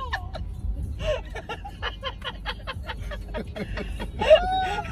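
People laughing in rapid short chuckles, ending in a longer voiced note near the end, inside a moving car's cabin over the steady low road rumble.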